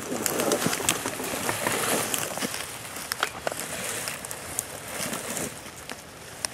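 Footsteps crunching and crackling through dry leaves and brush, with many small sharp snaps scattered throughout.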